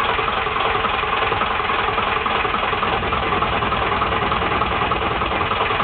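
Beta Marine BD3 three-cylinder diesel tug engine ticking over steadily in forward gear.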